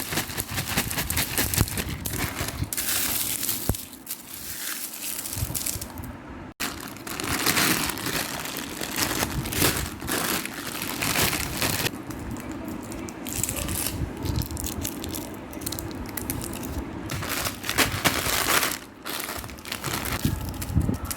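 Plastic snack wrappers crinkling and crunching as they are handled, a dense run of crackles with a brief break about six and a half seconds in.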